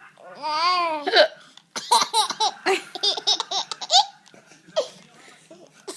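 A woman's sharp hiccup and a baby laughing at it in a run of short, high-pitched chuckles, the cycle repeating.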